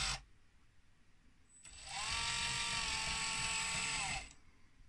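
The small electric motor driving a 3D-printed RC excavator's arm cylinder runs for about two and a half seconds, starting about a second and a half in. Its whine rises as it spins up and falls as it stops.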